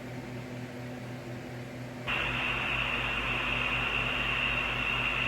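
Low electrical hum with faint hiss, then about two seconds in a louder, even hiss with a steady high-pitched whine sets in: the tape-style noise of an analog video soundtrack.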